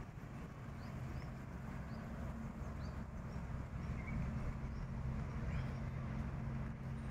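Small birds chirping, short high rising chirps about two a second, over a steady low hum.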